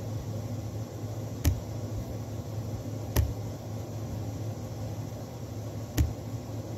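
Three sharp taps over a steady low hum: one about a second and a half in, another under two seconds later, and the loudest near the end.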